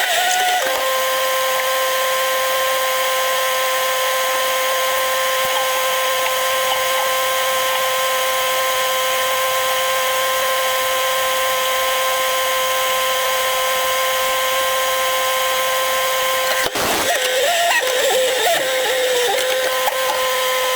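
A small motor, like that of a power tool, running with a steady high-pitched whine. It cuts out briefly near the end and comes back with its pitch wavering.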